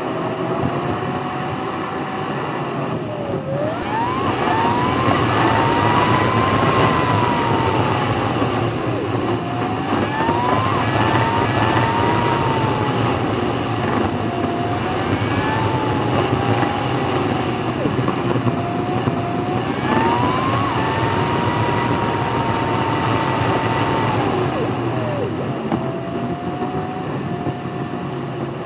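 Audi TT driven hard at night, heard from inside the cabin: a steady loud rush of tyre and wind noise, with the engine note rising and falling as the car accelerates. A few times the engine note climbs and then drops back sharply.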